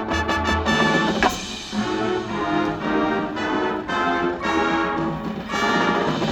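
High school marching band playing: full brass chords over percussion, with a sharp percussion hit about a second in, then a run of evenly repeated brass chord strokes.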